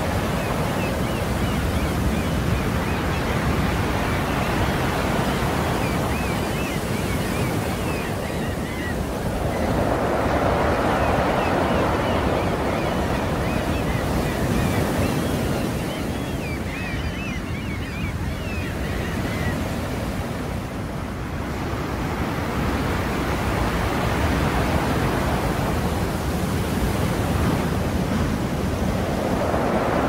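Sea waves washing onto the shore in a continuous surf roar, with one wave surging louder about ten seconds in and another near the end.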